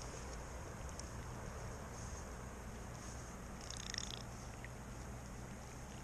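Steady low rumble and even rush of flowing creek water, with a brief high chirping sound about four seconds in.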